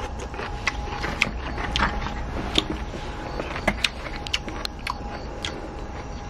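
Eating noises: irregular sharp clicks and smacks from chopsticks and mouth as yangnyeom fried chicken is eaten, over a low steady rumble and a faint steady tone.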